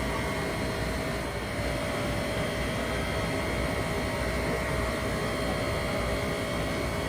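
A car engine idling steadily, a low rumble with a constant hum over it.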